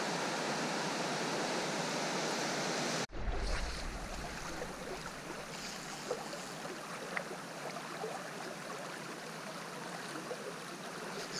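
Steady rush of flowing river water. It drops suddenly to a quieter level about three seconds in, with a few faint clicks after that.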